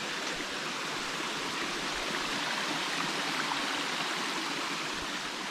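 Steady rush of a creek spilling over rocks in small cascades into a waterfall.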